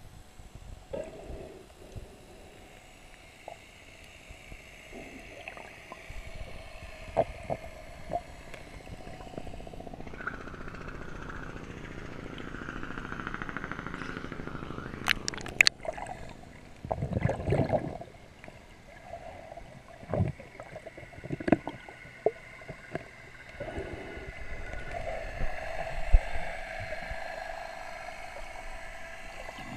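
Muffled underwater sound from a camera held by a snorkeler: swirling water and bubbles with scattered knocks, a burst of sharp clicks and heavy thumps just past halfway as the camera breaks the surface and goes back under.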